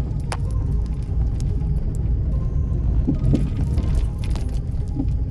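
Car driving slowly over a rough, gravel-strewn road, heard from inside the cabin: a steady low rumble of tyres and body, with scattered small clicks and rattles.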